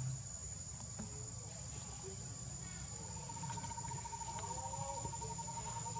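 Insects chirring in a steady high-pitched drone. A second, lower rapid trill joins about halfway through, over a low background rumble.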